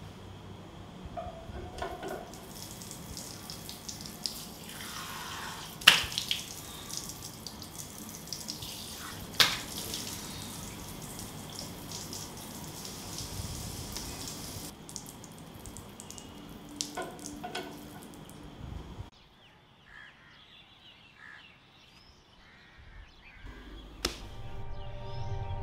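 Tap water running into a bathroom sink as a man washes his face, with two sharp splashes about six and nine seconds in. The running water stops suddenly about two-thirds of the way through, and soft music comes in near the end.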